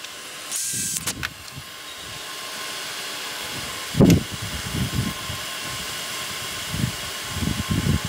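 Steady whirr of a shop fan, with knocks and light clicks of tools being handled at a workbench. The loudest is a single knock about four seconds in, as a cordless drill is set down on the wooden bench top.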